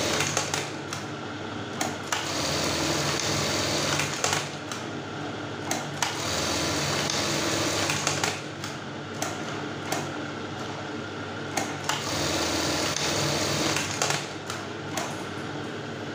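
Brother 814 buttonhole sewing machine sewing buttonholes on a fabric strip, running in stretches of a few seconds broken by sharp clacks, several cycles in a row. It is being test-run with new number 50 and 26 gears fitted to speed it up.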